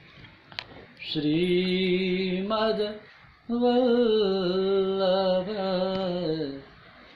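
A man's voice chanting a mantra in two long, held phrases, the pitch stepping between steady notes.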